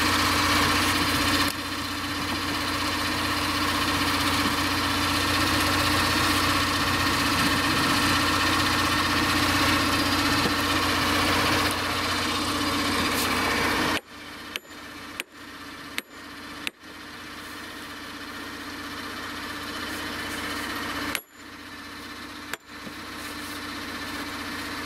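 Steady hum of an idling tractor engine. About halfway through it drops sharply, and a handful of sharp knocks come there and a couple more near the end.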